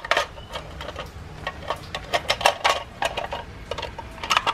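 A string of irregular hard-plastic clicks and knocks as a black plastic cover is fitted into place over a circuit board inside an opened Keurig K-Classic B40 coffee maker.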